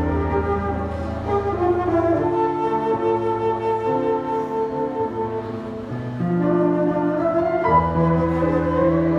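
Flute playing a slow melody of long held notes over electric keyboard accompaniment with sustained low bass notes.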